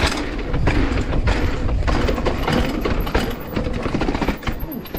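Downhill mountain bike rolling over a rough trail, its chain rattling and slapping, with tyre noise and rapid knocks from the bumps.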